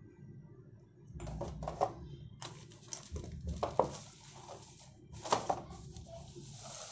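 Rustling and clicking of RCA cables and their packaging being handled, in irregular bursts with a few sharp clicks.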